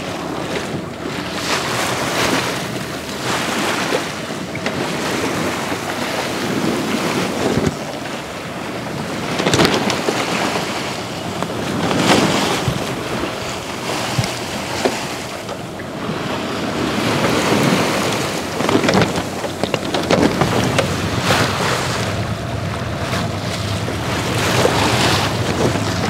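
Sea water rushing and splashing along the hull of a Westsail sailboat under way, swelling every couple of seconds as waves pass. Wind buffets the microphone.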